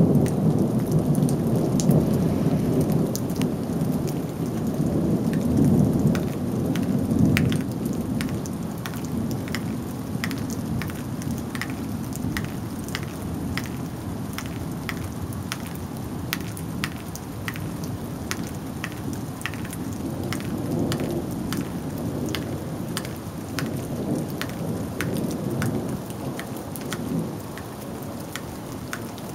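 Thunder rumbling low and long, loudest over the first seven or eight seconds and then dying away, with rain falling steadily and many sharp drips ticking throughout.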